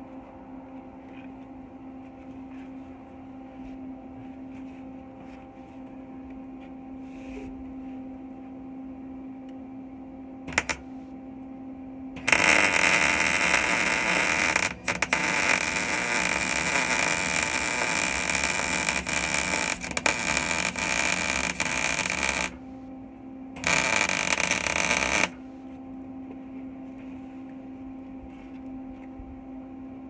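MIG welder arc crackling as a subframe connector is welded to a car's underbody: a brief blip about ten seconds in, then a long bead of about ten seconds, then a short second bead. A steady low hum runs underneath.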